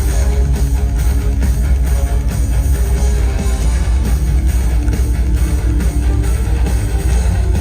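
Live heavy metal band playing, with guitar over drums and a heavy bass, at a steady loudness.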